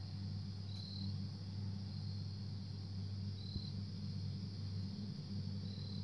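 A low, steady 50-hertz hum of unknown origin, the strange sound that woke the listener in the night. A short high chirp comes about every two and a half seconds.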